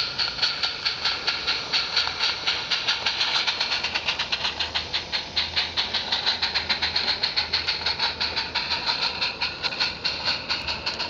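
Live-steam garden railway steam locomotive running past with its rake of bogie wagons: a rapid, regular beat at about four a second, strongest in the upper middle of the range.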